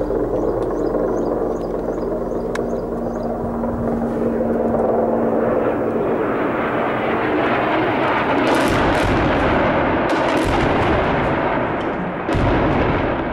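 Barrel bombs exploding on impact: heavy blasts about two seconds apart, the last the sharpest. Before them a rushing noise builds, and a steady aircraft drone fades out.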